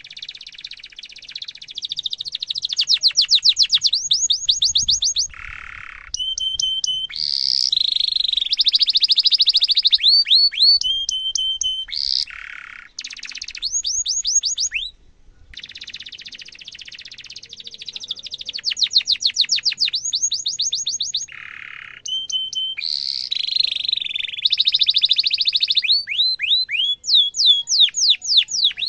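Domestic canary singing long phrases of rapid trills and rolls, with runs of quick falling whistled notes and a few short, lower buzzy phrases, separated by brief pauses.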